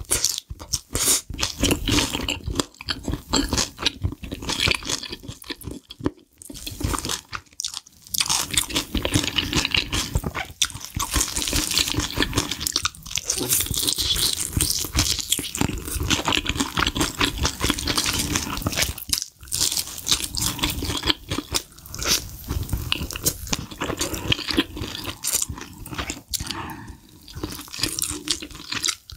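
Close-miked crunching, biting and chewing of crispy sauce-glazed Korean fried chicken, a dense run of crackles with a few short pauses.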